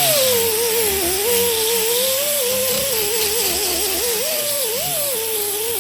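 Electric grinder running on cured polyester fiberglass. Its whine wavers up and down as the disc bites into the cured patch and eases off, over a steady grinding hiss.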